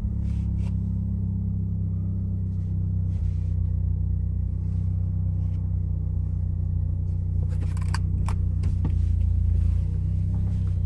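Exhaust drone heard inside the cabin of a Mitsubishi Lancer Ralliart with an Ultimate Racing axle-back performance muffler, its turbocharged four-cylinder engine holding a steady, low pitch at light cruise. A few brief clicks come about three-quarters of the way through.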